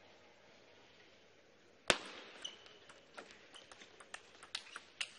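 Table tennis rally: a low hall hush, then the sharp click of the serve about two seconds in, followed by quick, irregular clicks of the plastic ball off the bats and the table, several a second, with a brief faint squeak among them.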